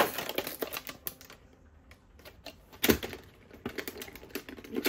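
Hard plastic toy parts being handled, making a run of light clicks and rattles, with a sharper knock at the start and another about three seconds in.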